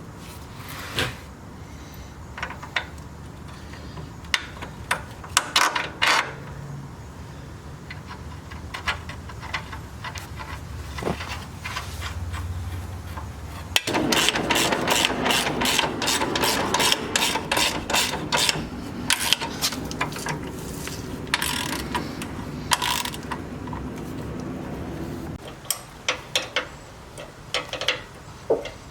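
Ratchet wrench clicking as fasteners are worked on a Jeep's rear suspension and brake lines, with scattered tool clicks and knocks, then a longer stretch of fast, continuous ratcheting from about halfway in until shortly before the end.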